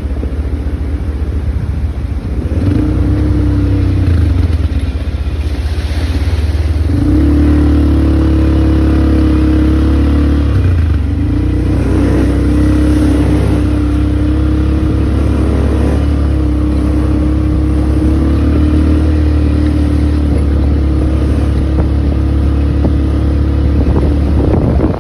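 An ATV's engine running under way, its pitch dropping briefly a few times and then holding steady as the throttle changes.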